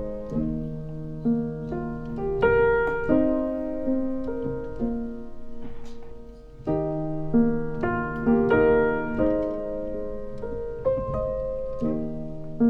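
Slow, soft piano background music: single notes and chords struck and left to ring, with a short hush about halfway through.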